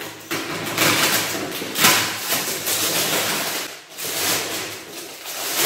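Plastic wrapping crinkling and rustling as it is pulled off a spice rack of glass jars, in irregular crackly bursts.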